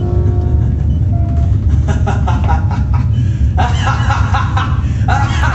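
A loud, steady low rumble, with indistinct voice-like sounds coming in from about two seconds in.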